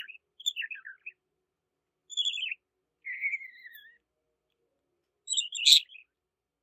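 Budgerigar chirping in short, separate bursts: quick chirps in the first second, more around two and three seconds in, one of them falling in pitch, and the loudest call about five and a half seconds in.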